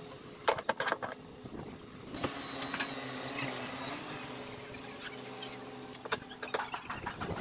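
Bar clamps being handled and tightened on a glued wooden wall, giving a quick run of clicks and knocks about half a second in and again near the end. A steady motor hum runs underneath from about two seconds in to about six.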